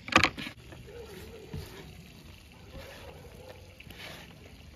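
A sharp knock of a knife against a wooden cutting board just after the start, then soft rustling as hands toss sliced onion rings with chopped herbs on the board.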